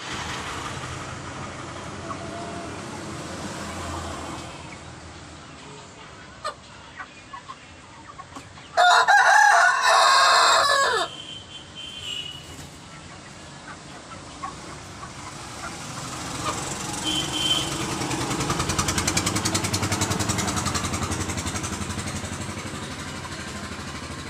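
A single loud animal call, pitched and wavering, lasting about two seconds about nine seconds in, over low background noise that swells again near the end.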